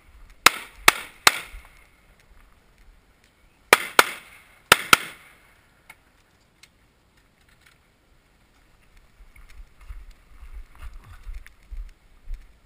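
Semi-automatic pistol fired in fast strings of shots: three quick shots in the first second and a half, then two pairs about four to five seconds in. Near the end there is a low rumbling.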